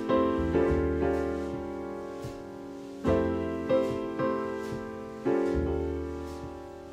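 Background piano music: slow chords struck every second or few, each left to ring and fade.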